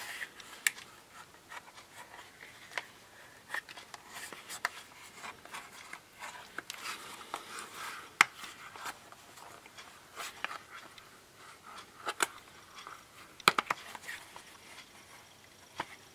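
Rubber protective cover being stretched and pressed onto the edges of a tablet: soft rubbing with scattered light clicks and taps, a few sharper ones as the cover snaps over the corners.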